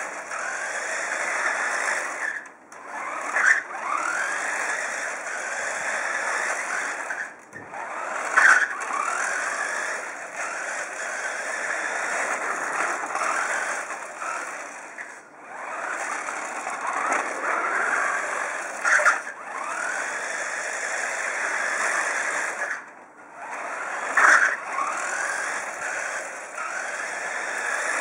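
Electric motor and gears of a radio-controlled model truck on a Tamiya chassis whining as it drives, the pitch rising and falling with the throttle and cutting out briefly four times. A few sharp knocks stand out over the whine.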